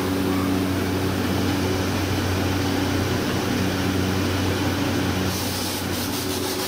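Steady machine hum: a low electrical drone under an even, fan-like rush. Near the end a flickering high hiss comes in over it.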